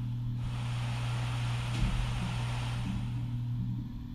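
Vornado PIVOT3 desk fan running, a steady low motor hum with a hiss of moving air, the hiss thinning near the end; a brief low knock about two seconds in.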